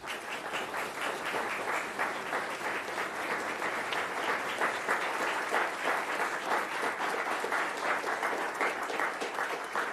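Club audience applauding steadily, a dense patter of many hands clapping, welcoming a singer who has just been announced onto the stage.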